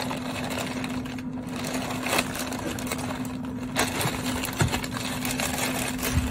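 Pink butcher paper rustling and crinkling as hands fold and press it tight around a rack of beef short ribs, with a few sharper crinkles, over a steady low hum.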